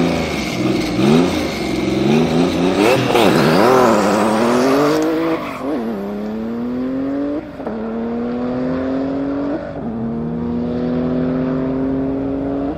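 Tuned Porsche 993 GT2 Evo's air-cooled twin-turbo flat-six revved up and down in quick blips, then accelerating hard through the gears. The engine note climbs steadily and drops back at a shift about seven seconds in and again about nine and a half seconds in.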